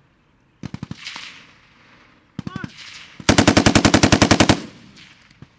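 Machine gun firing automatic bursts: two short bursts of a handful of rounds, then a longer, louder burst of about a second near the end, each followed by a short echo.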